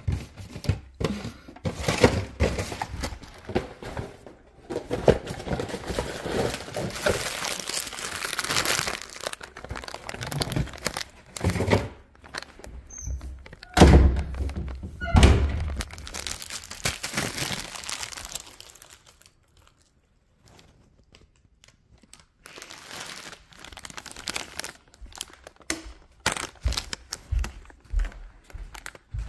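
Rummaging through a pantry: packaging crinkling and repeated thunks, with the loudest thumps about halfway through as the handheld camera is knocked and rubbed. After a short pause, footsteps on a hardwood floor near the end.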